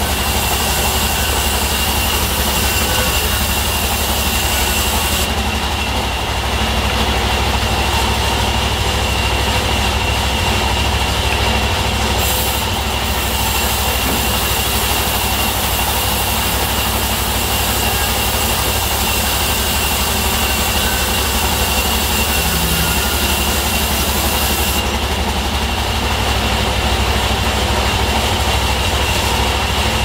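Diesel-powered band sawmill running, its blade cutting a teak plank: a steady high whine over the engine's low drone. The hiss in the highs drops away twice, about five seconds in and again near the end.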